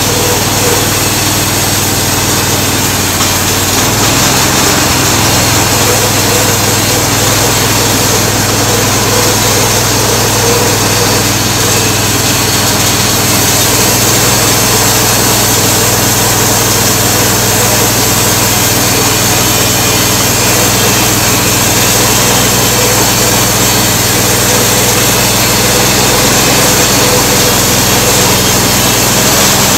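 Small gasoline engine on a homemade bandsaw mill running steadily at high speed, driving the band blade. Its note rises slightly about four seconds in.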